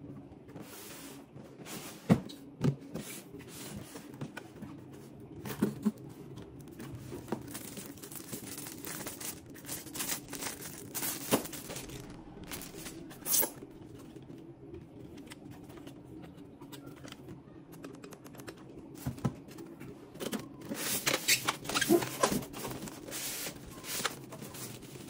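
A cardboard box and its packing being handled: irregular knocks, scrapes and slides of cardboard as the lid comes off, with a busier run of handling and plastic bag crinkling near the end, over a faint steady hum.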